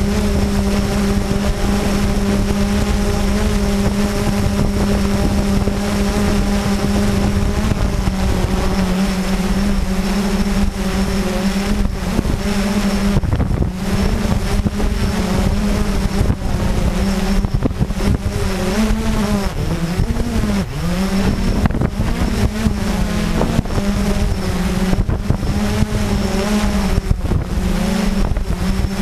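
Blade 350QX quadcopter's four brushless motors and propellers droning steadily in a hover, heard from a camera mounted under the craft. After the first third the pitch wavers up and down as the motors adjust speed, with one sharp dip about two-thirds of the way through.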